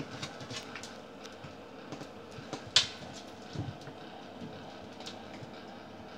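Puppies' claws clicking and tapping lightly on a laminate floor as they shift about, with one sharper click a little under halfway through and a dull thump just after.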